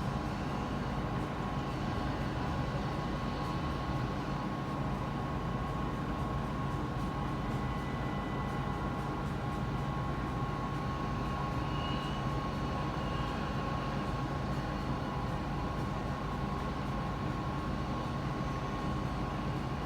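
Outdoor tornado warning siren sounding one steady, unbroken tone for its routine monthly test, over a low background rumble.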